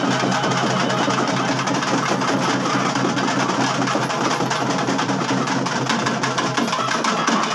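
Loud festival percussion: fast, continuous drumming, like a drum roll, with a steady low hum underneath.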